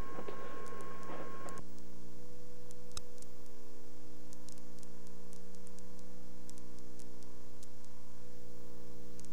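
Steady buzzing hum and static from a damaged VHS tape playing back. It cuts in abruptly about a second and a half in as the recording breaks up, with a few faint clicks over it.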